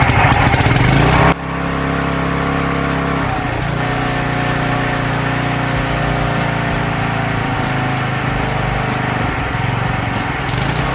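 Riding mower's small petrol engine just after starting on choke. It runs loud and rough for about a second, then drops suddenly to a steadier, lower note and keeps running evenly.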